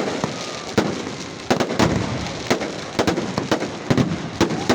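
Fireworks going off: an irregular series of sharp bangs, around a dozen in a few seconds, over a continuous background rumble.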